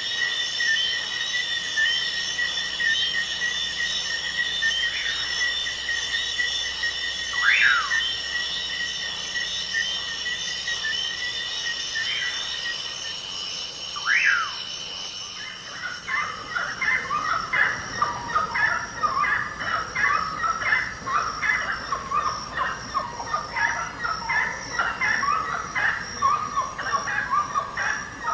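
Rainforest ambience: a steady, high-pitched insect trill with a few descending whistled calls every few seconds. About halfway through it changes to a busy chorus of short bird chirps.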